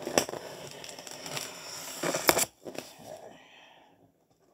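Styrofoam packaging being cut open along its seam with a utility knife: scraping and crackling, with sharp cracks just after the start and about two seconds in, dying away near the end.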